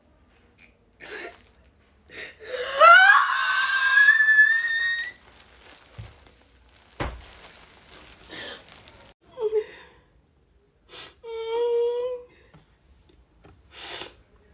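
A woman crying: a loud wail that rises in pitch and holds for a couple of seconds, then sniffs and gasping breaths, and a shorter steady moan about eleven seconds in.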